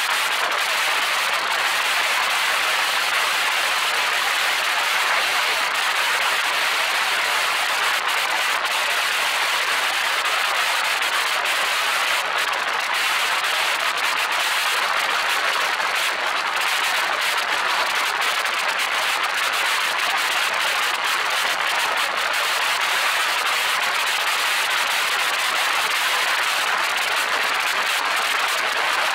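Steady rushing of wind and road noise, heard at a camera mounted on the roof of a moving car.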